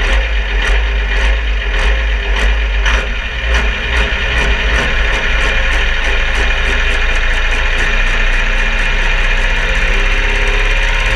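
Supersport-class pulling tractor's engine running steadily with a heavy low rumble and a regular tick roughly one and a half times a second. Steadier tones join in over the last few seconds.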